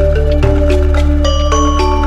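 Background music: a melody of bright struck-mallet notes over a sustained bass, the notes changing every quarter to half second.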